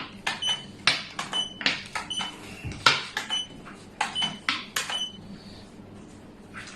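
Xiangqi pieces clacking onto the board, many sharp clacks in quick, irregular succession, some with a short ringing click.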